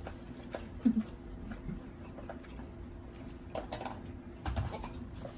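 Quiet eating at a table: a few faint clicks and taps, with a brief murmur about a second in.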